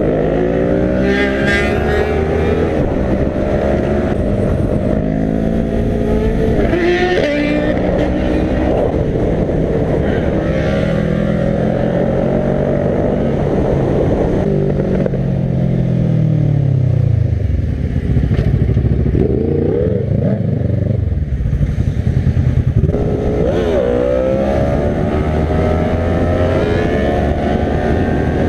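Sport motorcycle engines revving up and dropping back again and again, with one long falling pitch as a bike slows down around the middle.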